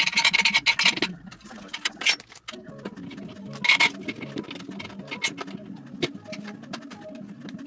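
Flat-pack furniture being assembled by hand: a metal leg frame and a white panel handled and fitted together, making irregular clicks and taps, with brief scraping rushes near the start and about four seconds in.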